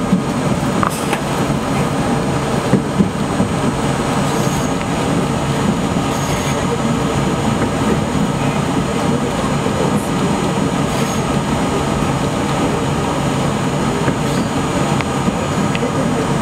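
NYC subway A train running along elevated track, heard from inside the front car. A steady rumble of wheels on rail with a motor hum, and a few sharp clicks over rail joints in the first few seconds.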